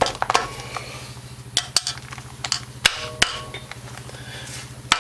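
Sharp metal clicks and knocks, irregularly spaced, as the rocker arm holder of a Honda Foreman 500's cylinder head is pushed down and seated over the push rods and dowels, with a low steady hum underneath.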